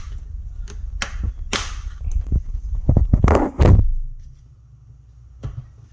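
Sharp clicks and snaps from a Midea dishwasher's door latch being pried back with a hook, with a louder clatter of knocks about three seconds in. The latch is faulty: it catches but won't release by itself.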